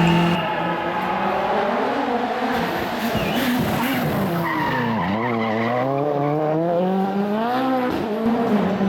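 A rally car's turbocharged four-cylinder engine (Ford Fiesta RS WRC) runs at speed. Its note falls steadily over the first few seconds as the car slows for a corner, then rises again as it accelerates out, with a sudden drop in pitch near the end at an upshift.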